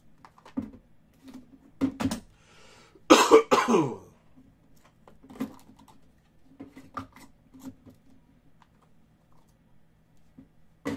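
A man coughs, two or three hacks about three seconds in, the loudest sound here. Around it come light taps and scrapes from hands opening a small trading-card box and sliding out its stack of cards, over a faint steady hum.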